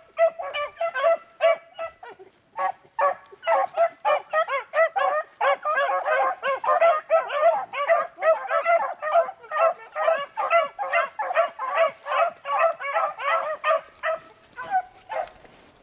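Pack of beagles baying on a rabbit's track: rapid, overlapping barks, several a second, that stop shortly before the end.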